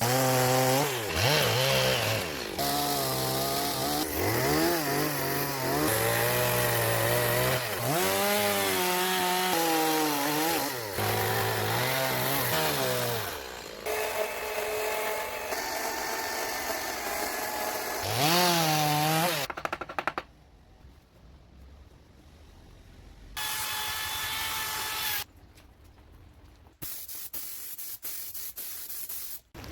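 Chainsaw cutting wood, its engine revving up and down repeatedly as the bar goes in and out of the cut. After about 19 seconds it drops away, with a short stretch of steady engine tone later on.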